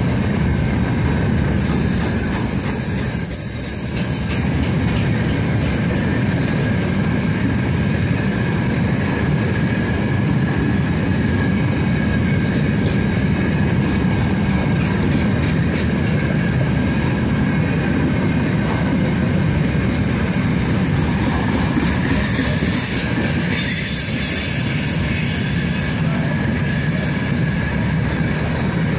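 Freight train's open gondola wagons rolling past close by: a steady rumble of steel wheels on the rails with a thin constant wheel squeal, and higher squealing whines that come and go, clearest early on and again about two-thirds of the way through.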